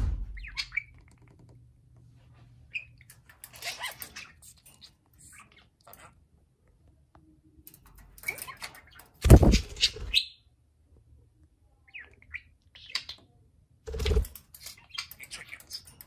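Budgerigars chirping and chattering in short, scattered bursts, with two louder bumps, the loudest about nine seconds in and another about fourteen seconds in.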